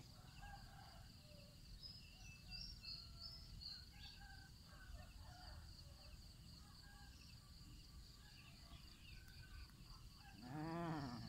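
Faint steady insect drone, high-pitched, with scattered small bird chirps. Near the end comes one short, louder call that rises and falls in pitch.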